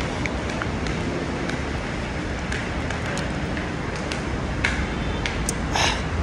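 Steady road-traffic noise from a busy highway, with scattered light clicks and a short burst of hiss near the end.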